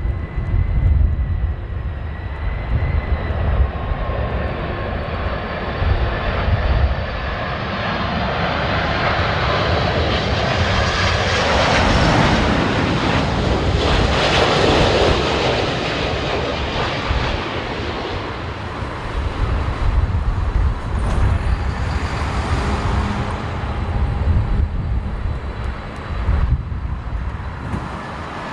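Jet airliner on final approach passing the spotter: a high engine whine at first, swelling to a loud rushing peak about halfway through, then fading away. Gusty wind buffets the microphone throughout.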